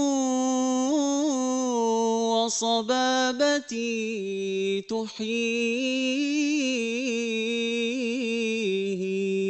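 A man sings an Arabic devotional praise chant (madih) in long, drawn-out notes with wavering melismatic ornaments. The line breaks briefly about three seconds in, and the pitch steps down to a lower held note near the end.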